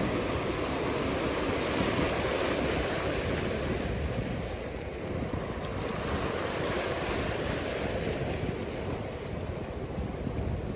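Ocean surf washing and rumbling steadily, with wind buffeting the microphone.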